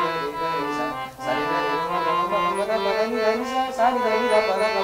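Harmonium playing a sargam alankar, a run of reed notes stepping up and down the scale with a short break about a second in. A man's voice sings the notes along with it.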